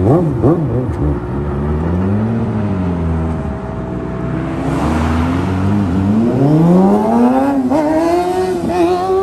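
Motorcycle engine revving and accelerating, its pitch rising and falling. Late on it climbs steadily, drops for a moment at a gear change, then climbs again.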